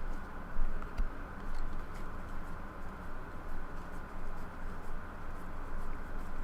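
Trading cards being handled and flipped through: soft rustling with a few light clicks.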